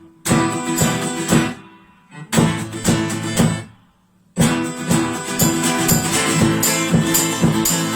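Acoustic guitar strummed in short stop-start bursts, then playing on without a break from about four seconds in.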